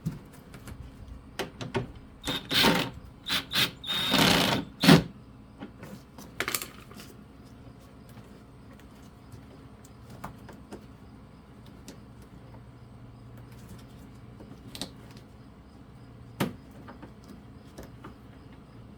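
Hand tools and small parts being handled: a run of clicks and rattles in the first several seconds, then a few single clicks.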